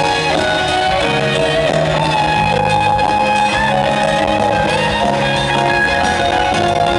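Rock band playing live in an instrumental jam: electric guitar leading over bass, drums and keyboards, steady and loud.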